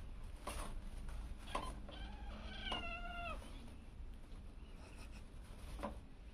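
Kitten mewing once, a short high wavering call about three seconds in. A few soft knocks before and after it.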